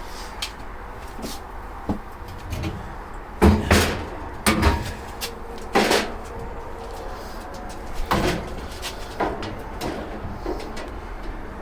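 Sheet-steel tool chest and cart frame knocking and clunking as the heavy chest is lifted and lowered into place: several sharp knocks, the loudest in a cluster about three to six seconds in.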